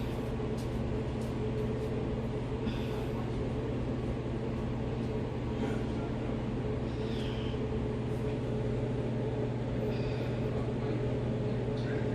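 New washing machine running at the start of a wash cycle, a steady low mechanical hum.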